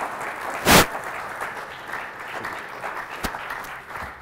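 Audience applauding, the clapping slowly thinning out toward the end, with one loud thump less than a second in.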